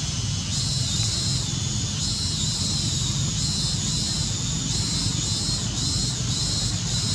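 Steady outdoor ambience: a constant low drone under a high buzzing that swells and fades in waves every second or so.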